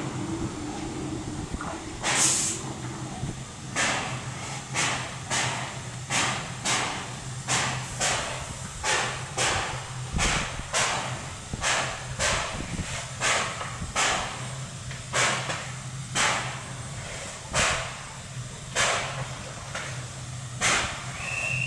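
Px29 narrow-gauge steam locomotive puffing in a steady rhythm, about two puffs a second, as it starts to move slowly. A sharp burst of steam hiss comes about two seconds in, and a short high tone sounds near the end.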